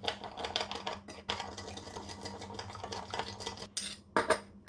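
A utensil stirring salad dressing in a bowl: a quick run of clinks against the bowl, with two louder clinks near the end.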